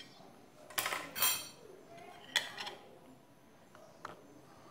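A knife scraping and clinking against a ceramic plate while cutting a slice from a cake and lifting it out: a few short clinks, the loudest about a second in and another about two and a half seconds in.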